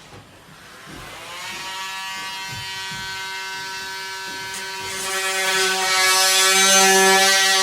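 A handheld electric power tool buzzing steadily as it cuts. It spins up about a second in, with a few low knocks early on, and grows louder toward the end.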